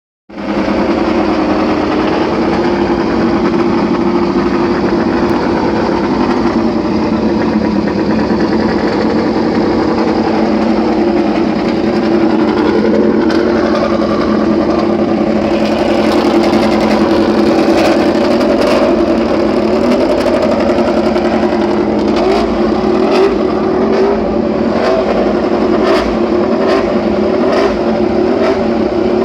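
Honda RC213V MotoGP bike's V4 engine running at a steady, fast warm-up idle in the pit box, its pitch holding nearly level. From about halfway, short sharp pops sound now and then over the engine.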